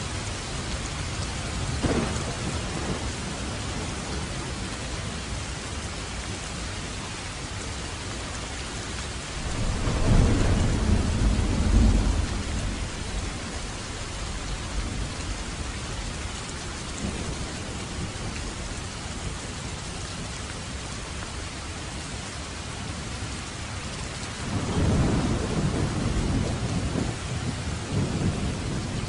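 Steady heavy rain hissing, with thunder rumbling through it: a short rumble about two seconds in, a louder rolling rumble for about three seconds around the ten-second mark, and another near the end.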